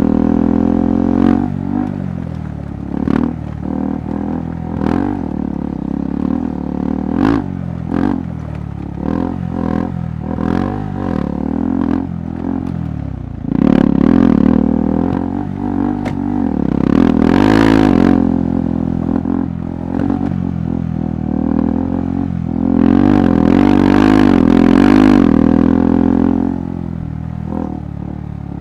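KTM 390 Adventure's single-cylinder engine pulling at low to middling revs on a rough trail, opened up into two longer, louder stretches of throttle, one about halfway through and one later. Frequent short knocks and clatter from the bike jolting over the uneven ground.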